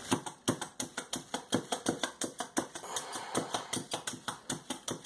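A meat tenderizer striking raw chicken pieces in a pan over and over, a rapid even pounding of about three blows a second.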